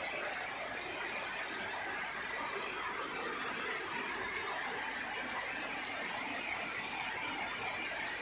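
Steady rainfall, an even hiss of rain with a few faint drop ticks.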